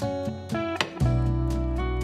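Background music led by acoustic guitar: plucked notes, then a strum, with a low bass line coming in about halfway.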